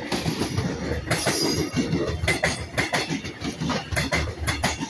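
Metro Trains Melbourne X'Trapolis electric train passing close by, its wheels rumbling on the rails with a rapid, irregular series of sharp clacks.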